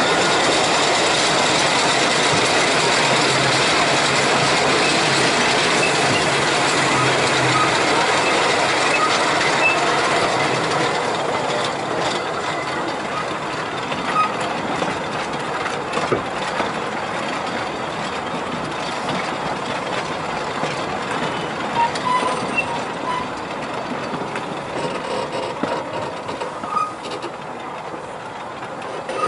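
Talyllyn Railway narrow-gauge steam train running along the rails: a steady rumble and rattle of wheels and carriages, with scattered clicks, growing quieter from about ten seconds in.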